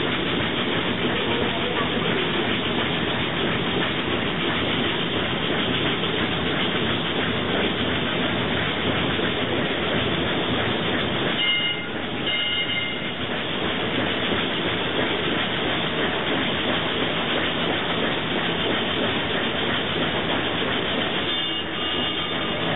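Recorded steam ship sound played through a small portable speaker: a steady, dense hiss and rumble. Brief high tones come in about halfway through and again near the end.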